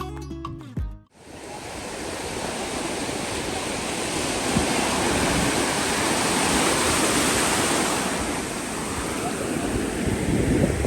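Background music cuts off about a second in, giving way to a steady wash of sea surf breaking on a sandy beach, with wind rumbling on the microphone.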